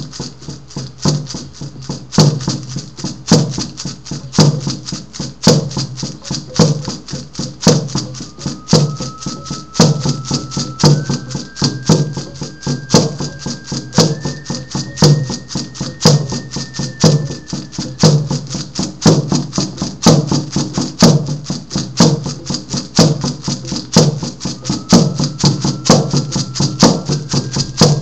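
A hand-held frame drum beaten in a steady rhythm, roughly two strokes a second. Over it, a thin high held tone steps up in pitch a few times, first about a third of the way in and again near the end.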